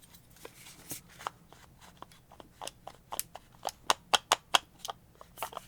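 A quick series of small sharp clicks and taps from hands and a tool working the parts of a disassembled angle grinder, sparse at first and then denser and louder for a couple of seconds near the middle.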